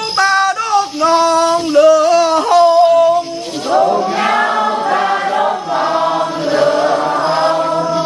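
A group of young voices chanting together in short held notes, then, about halfway through, a fuller blend of many voices singing at once.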